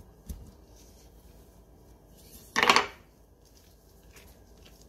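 Hands tearing and handling soft bread dough on a wooden table: a soft knock just after the start, then a short, loud scrape about halfway through as the dough is torn or pushed across the board.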